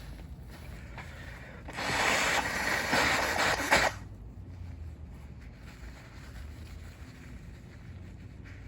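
A person blowing their nose once: a rough, noisy blast lasting about two seconds, starting about two seconds in.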